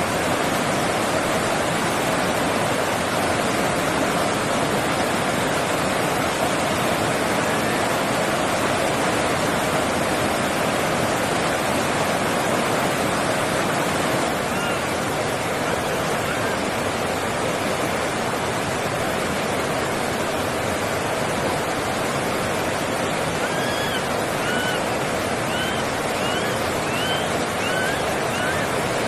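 Steady rushing noise like flowing water, spread evenly over low and high pitches. Near the end comes a run of short chirping calls that rise and fall, about one or two a second.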